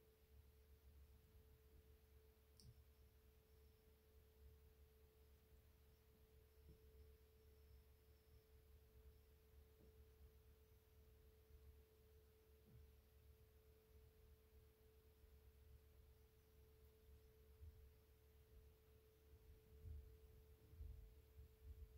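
Near silence: quiet room tone with a faint, steady pitched hum.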